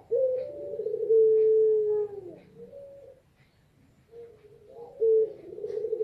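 Female puter pelung dove cooing: long, low calls held steady and dropping in pitch at the end, with a few short notes after the first. There is a brief pause, and the cooing starts again about four seconds in.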